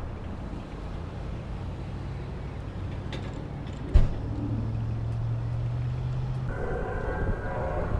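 A motor vehicle's engine running with a steady low hum, a sharp knock about four seconds in, and a change to a busier, higher sound about two-thirds of the way through.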